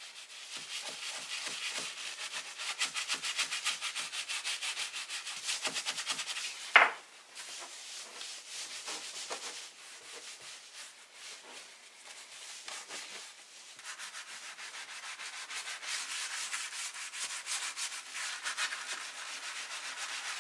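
Stiff bristle brush scrubbing foaming leather cleaner into a leather steering-wheel rim in quick back-and-forth strokes. A brief sharp sound about seven seconds in, then softer wiping with a cloth, before the brisk scrubbing picks up again.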